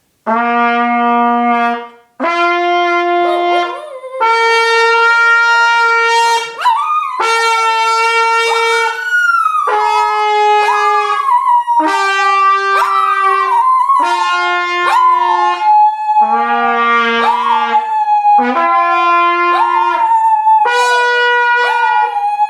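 Trumpet playing a slow run of long held notes while a dog howls along, its wavering howl sliding up and down above the trumpet from a few seconds in.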